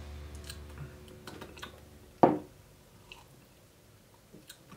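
Drinking glasses handled on a wooden table during sipping: scattered light clicks and taps, with one sharper knock about two seconds in as a glass is set down.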